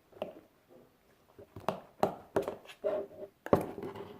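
Scattered taps and knocks of objects being handled, one sharper knock about three and a half seconds in.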